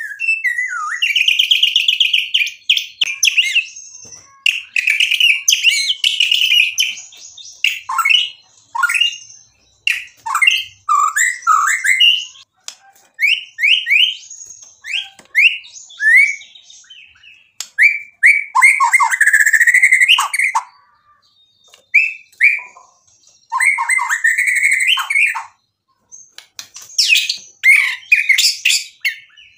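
Male white-rumped shama (murai batu) in full song: a rapid, varied run of clear whistles, fast trills and sharp chattering notes packed with mimicked phrases, delivered in bursts separated by short pauses.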